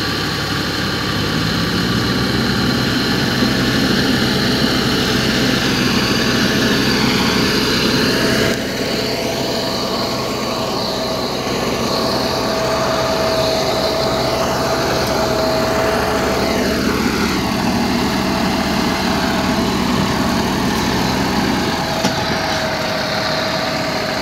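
Massey Ferguson 241 tractor's three-cylinder diesel engine running steadily while hauling a heavy load. Its pitch rises slightly about a second in, and the sound dips briefly about eight seconds in.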